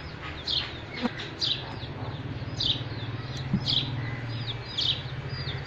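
Bird calling: short, downward-sweeping chirps repeated every second or so, over a steady low hum.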